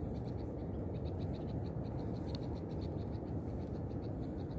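Steady low outdoor rumble of wind and water at the waterside, with a faint high chirping that pulses evenly about six to seven times a second.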